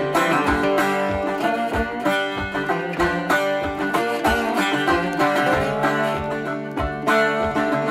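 Background instrumental music: an upbeat tune of plucked-string notes over a steady beat.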